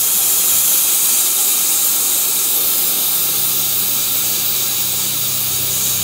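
Pressurised nitrogen hissing out of a refrigerator's sealed system through a compound gauge manifold valve, as the 110 PSI leak-test pressure is vented. It is a steady, loud hiss.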